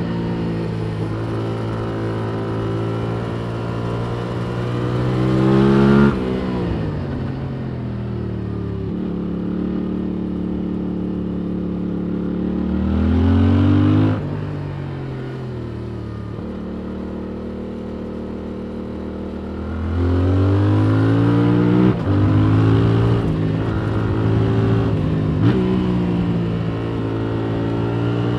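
2021 Yamaha MT-07's 689 cc parallel-twin engine on its stock Euro 5 exhaust, heard onboard while riding. Revs climb under throttle and fall sharply when it is rolled off at about six seconds and again near the middle. The engine holds a steady lower note, then pulls up again through several quick step changes in the last third.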